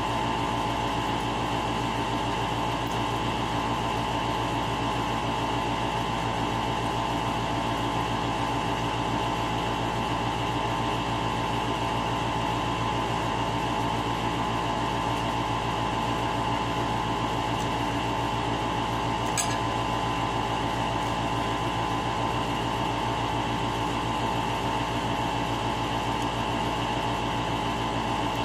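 A steady machine hum with several fixed tones, even and unchanging throughout, with one light click about two-thirds of the way through.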